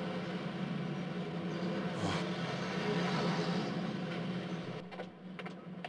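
Steady low background hum with even noise, with a brief swish about two seconds in.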